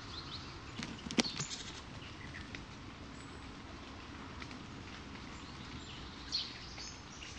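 Steady outdoor background hiss; about a second in, a cluster of sharp knocks and scuffles from a magpie at the feeding dishes as it leaves, and a short high bird chirp near the end.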